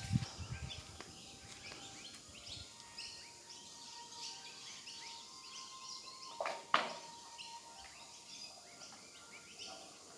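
Birds chirping in the background, with a faint steady tone and a single sharp click about two-thirds of the way through.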